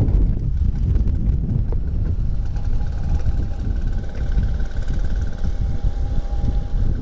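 Single-cylinder two-stroke engine of a vintage Vespa Super 150 scooter running steadily under way, a dense low rumble. A faint steady high whine joins about two and a half seconds in.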